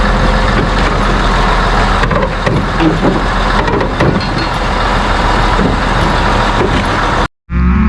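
Large diesel machinery running steadily, a dense engine noise with a low hum. It cuts off abruptly near the end.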